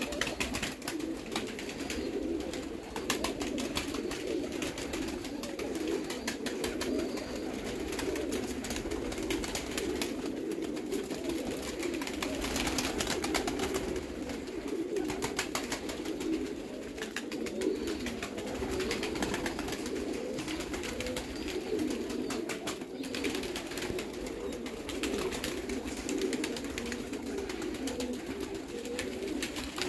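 A flock of red broad-tailed Baku pigeons cooing continuously, many calls overlapping, with scattered short clicks throughout.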